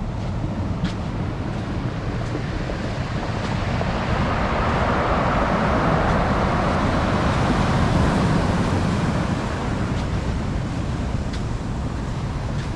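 Wind buffeting the microphone with a steady low rumble. A rushing sound swells over a few seconds in the middle, peaks, and fades away.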